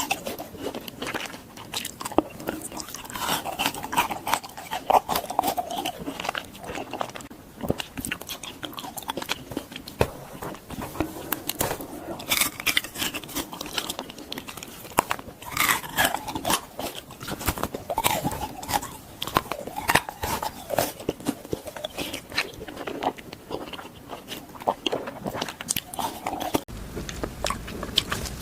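Close-miked biting and chewing of frozen fruit: crisp crunching bites, one after another.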